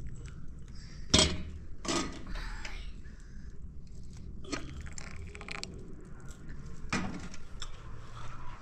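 Tea pouring from a metal teapot into a glass cup, with four sharp knocks and clinks as the teapot and glasses are handled on a plastic tray. The loudest knock comes about a second in.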